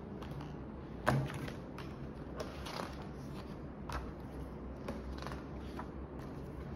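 Glossy pages of a large photo book being turned and smoothed down by hand: a sharp paper snap about a second in, then several softer rustles and taps.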